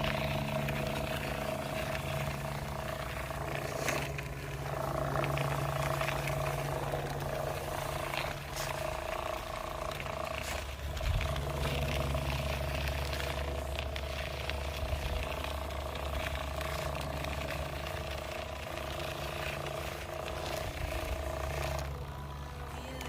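A steady engine-like drone with a constant low hum, holding one pitch, with small scrapes and clicks over it.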